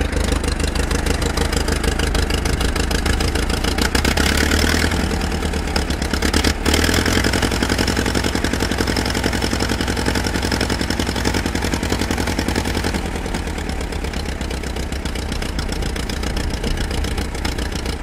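David Brown VIG1 aircraft tug's engine running steadily at idle, with a brief dip about six and a half seconds in.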